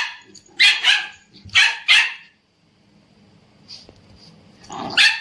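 An Indian Spitz barks: a quick run of about five sharp barks in the first two seconds, a short pause, then one more bark near the end.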